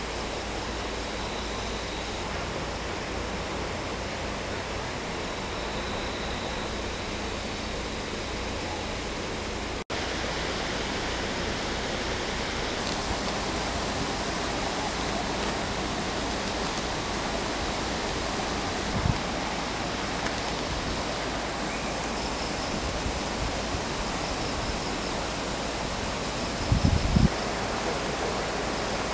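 Steady rushing of river water, unbroken by speech, with a sudden break about ten seconds in after which it resumes slightly louder. A brief low knock comes about two-thirds through, and a short cluster of low thumps near the end.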